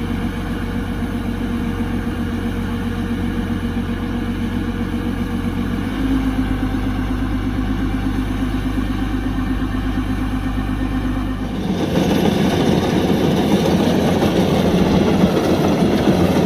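Kubota DC105X combine harvester's engine running steadily. Its low hum shifts about six seconds in, and near twelve seconds the sound grows louder and rougher.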